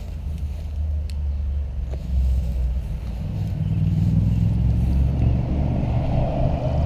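A car passing on a nearby road, its engine and tyre noise building over the last few seconds, over a steady low rumble.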